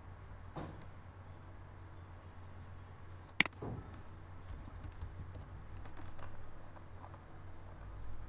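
A few clicks at a computer over a low steady hum, the loudest a sharp click about three and a half seconds in.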